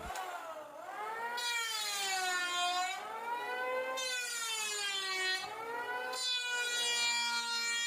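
Black & Decker electric hand planer running, its motor whine sagging in pitch and recovering several times as the blades bite into the wood and free up again.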